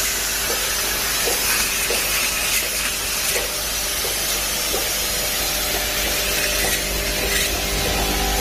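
Glass medicine bottle capping machine and its cap feeders running: a steady hiss and hum with light clicks under a second apart.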